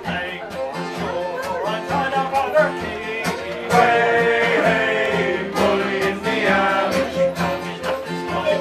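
Male shanty choir singing a sea shanty together, accompanied by strummed acoustic guitar, fiddle and a hand drum keeping a steady beat.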